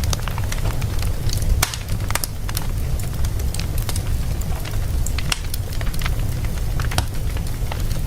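Wood fire burning in a fireplace: a steady low rumble of flames with frequent irregular pops and crackles.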